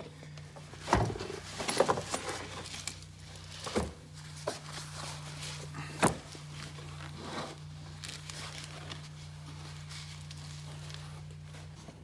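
Knocks and clunks as a car battery is lifted out of the engine bay, with a few sharp ones in the first six seconds and handling rustle between them, over a steady low hum.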